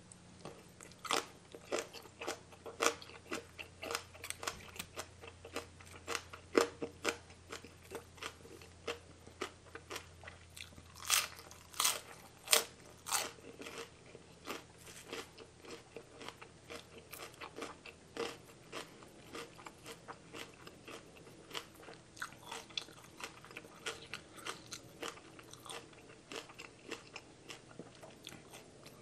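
Crunchy chewing of a mouthful of spicy mixed salad with raw vegetables, a steady run of sharp crunches that is loudest a little past ten seconds in.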